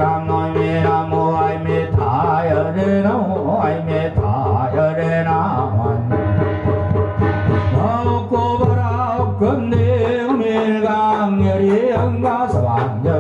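Buddhist ritual chanting sung with instrumental accompaniment: wavering melodic lines over a steady low drone, with light drumming.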